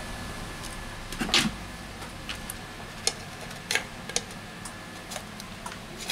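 Light clicks and taps from a smartphone's aluminium back cover and frame being handled, with a louder knock about a second and a half in and single sharp clicks every second or so after.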